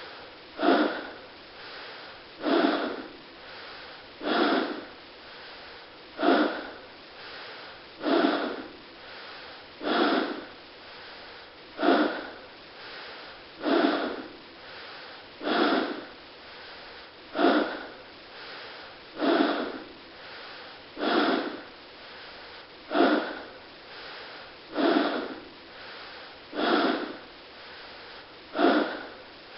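A person breathing hard and forcefully in a steady rhythm: a loud, sharp breath about every two seconds, each followed by a quieter, softer one.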